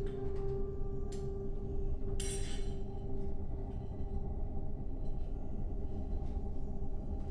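A sustained ringing tone, like a singing bowl, fading away over the first three seconds above a steady low rumble. A few faint clinks of metal kitchenware and a short rushing hiss about two seconds in.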